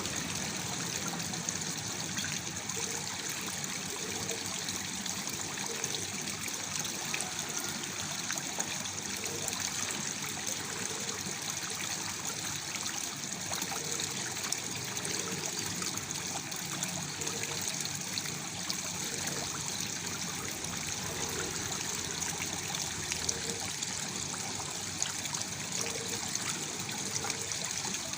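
Waterfall splashing steadily, an even rush of falling water with many small splashes.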